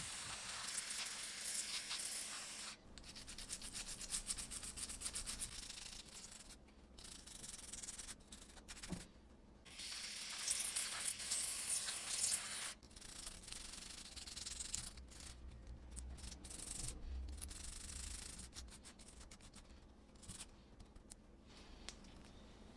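Aerosol cleaner hissing in bursts as it is sprayed through a straw onto a phone circuit board to clean off corrosion. Between the bursts come passages of quick, scratchy rubbing strokes on the board.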